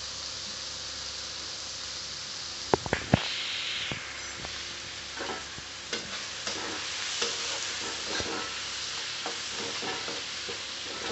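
Onion, tomato and spice masala sizzling in hot oil in a steel kadhai while a spatula stirs and scrapes it against the pan. A few sharp knocks come close together about three seconds in.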